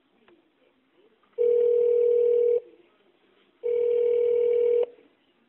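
Telephone ringback tone heard over the phone line: two steady, even tones, each a little over a second long and about a second apart. The call is ringing through while it is transferred to an agent.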